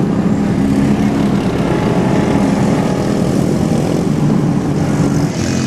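Pickup truck engines running under load in a steady low drone as a stuck pickup is towed out of a mud pit by another pickup on a tow strap.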